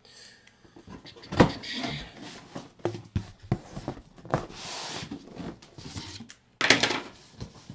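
Cardboard shipping box being handled and opened, its flaps folded back, with scattered knocks and scrapes of cardboard. A sharp knock comes about a second and a half in, and a loud scraping burst comes near the end.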